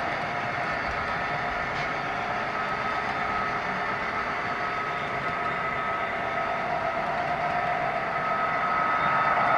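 Model double-stack container train running on the track: a steady rolling noise of the cars with a held whine, growing slowly louder near the end as the locomotive comes up.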